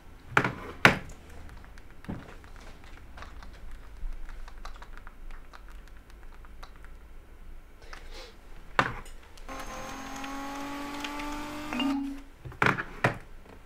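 Phone keypad clicking as a text message is typed, with a handful of sharper clicks. A steady pitched tone is held for about two seconds near the end.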